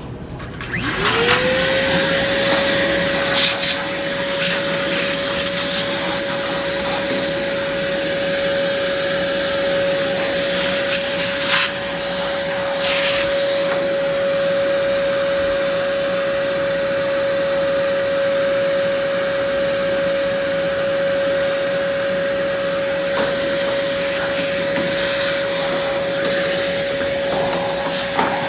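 Vacuum cleaner switched on about a second in, its motor whine rising and then running steadily, with a few brief clatters.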